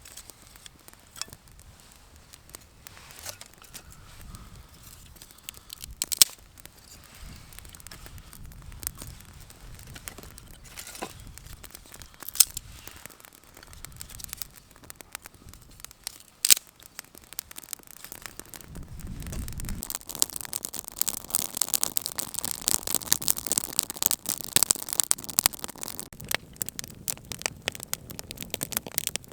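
Camp cooking: scattered clicks and knocks, then, from about two-thirds of the way in, gnocchi frying in a hot pan with a dense, crackling sizzle.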